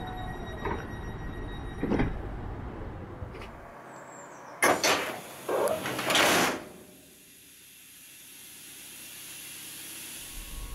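Passenger train door closing: the two leaves of a regional train's door come together with a couple of sharp clunks and then a hiss of air, after a few lighter knocks.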